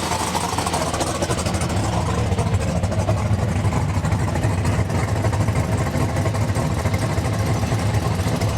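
A car engine and exhaust running steadily under way, a loud, low drone with fast even pulsing.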